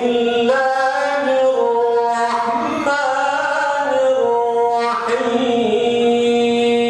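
A man's solo Quran recitation (tilawah) in the melodic style, the voice holding long, sliding, ornamented notes with short breaths between phrases.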